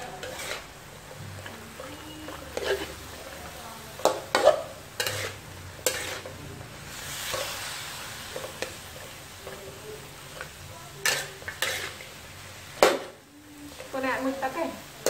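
Metal ladle scraping and clanking against a steel wok as long beans and pork are stir-fried, in irregular strokes, over a steady sizzle of hot oil. The sizzle swells for a second or so about seven seconds in.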